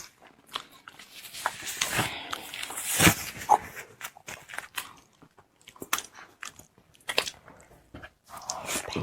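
Close-miked mouth sounds of someone eating soft durian flesh: chewing and lip-smacking with scattered clicks, busiest from about one to three and a half seconds in.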